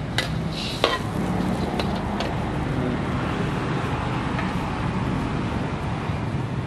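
Gas wok burner running steadily under a wok of simmering broth, with two sharp metal clinks of a ladle against the wok about a second in.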